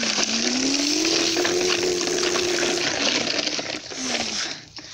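A person voicing an engine noise with their mouth: a rough, hissing growl with a hummed note that rises over the first second or so, holds for about two seconds, then breaks off, followed by a short falling note near the end.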